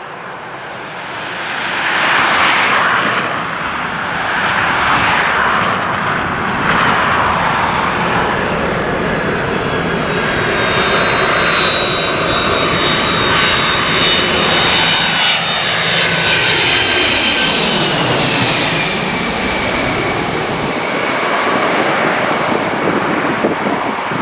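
Airliner passing close by, its engines rising to a loud, steady noise over about two seconds, with high whining tones that drop in pitch as it goes past about eighteen seconds in.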